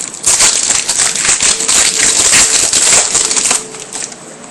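Chromium trading cards being handled and flipped through: a dense rustling with quick clicks that drops away about three and a half seconds in.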